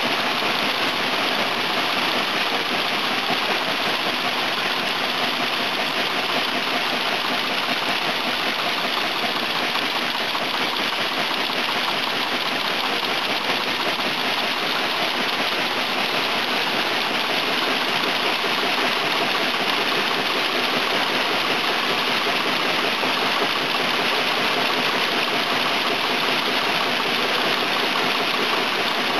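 Automatic through-hole component insertion machine for PCB assembly running: a steady, even machine noise that holds without a break and without a clear beat.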